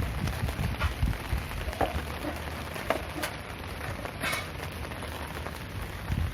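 Steady rain pattering on a surface, with single louder drops standing out now and then, the sharpest about four seconds in.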